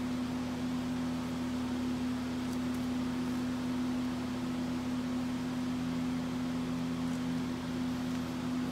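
Steady motor hum with a hiss over it, holding one pitch throughout, as from a fan running. A few faint crinkles come from a foil-backed Dynamat sound-deadening sheet being pressed onto a shifter body.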